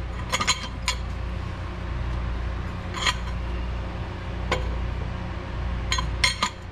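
Steel exhaust pipe clinking and tapping against the header flange and the underside of the car as it is held up and fitted, several sharp metallic clinks a second or so apart, over a steady low hum.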